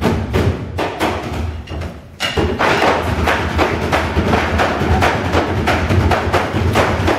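Percussion ensemble drumming a fast, dense rhythm of many strikes, dropping out briefly just before two seconds in and then coming back in.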